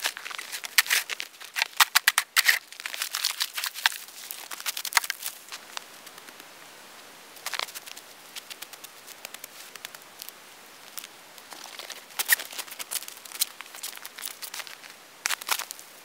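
Snow crunching and evergreen twigs crackling as hands work snow and small boughs: a dense run of sharp crackles for the first five seconds or so, a quieter stretch with scattered ticks, then more crackling about twelve and fifteen seconds in.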